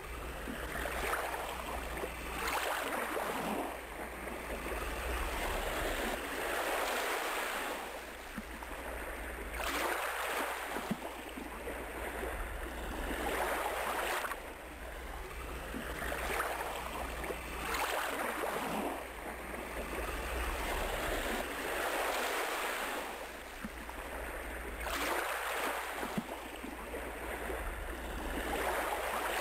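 Ocean surf: waves washing in and drawing back, a rushing noise that swells and fades every few seconds, over a steady low hum.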